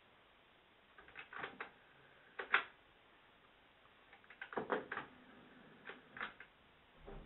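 Plastic clicks and knocks from a cassette and the controls of a portable TV's built-in car-style tape deck being handled, in small clusters with the sharpest click about two and a half seconds in.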